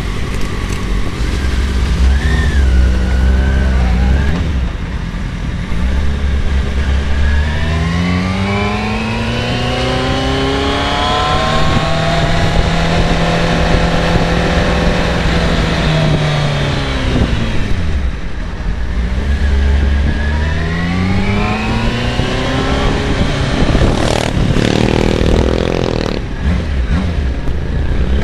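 Kawasaki ZX-6RR 600 cc inline-four sport bike engine heard from onboard, pulling up through the revs, holding a steady note for a few seconds, then easing off. It then pulls up again, with a low wind rumble on the microphone underneath. A brief clatter and buzz come near the end.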